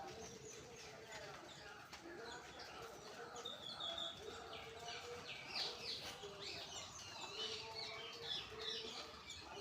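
Faint chirping of several birds, many short high calls overlapping, busiest in the second half.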